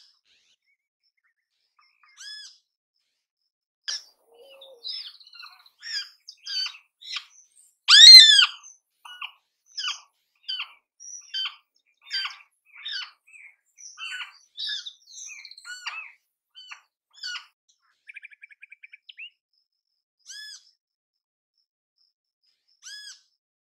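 Great kiskadee calling: single arched call notes a couple of seconds apart, then a busy run of rapid calls with one much louder call about eight seconds in, and a quick rattling trill about eighteen seconds in before the spaced single notes return.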